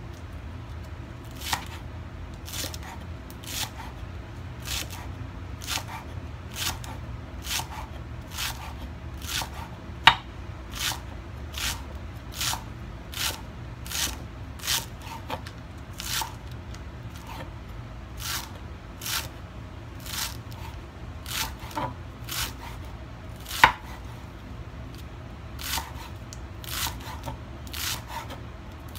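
A Chinese cleaver chopping a bundle of chives on a thick wooden chopping block, in even strokes about one a second. Two strokes, about ten seconds in and near the three-quarter mark, land harder than the rest. A low steady hum runs underneath.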